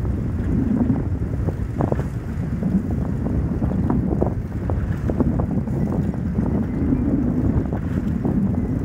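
Wind buffeting the microphone, a steady low rumble, with a few short faint clicks now and then.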